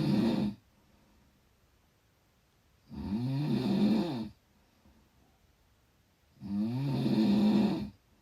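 Snoring in a slow, regular rhythm: the end of one snore at the start, then two full snores about three and a half seconds apart, each lasting a second and a half or so, with a pitch that bends up and down.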